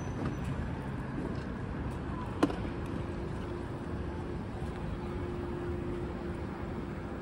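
Street traffic at a city intersection: cars and electric scooters passing in a steady wash of road noise. One sharp knock about two and a half seconds in, then a steady low hum sets in.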